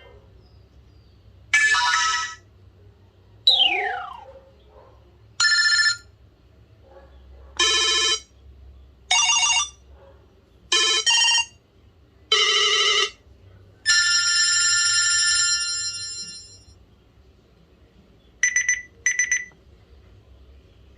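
BlackBerry Curve 8900 alert tones played one after another: about nine short electronic chimes with brief gaps between them. One sweeps quickly down in pitch, one rings for a couple of seconds and fades out, and the last is a quick double beep.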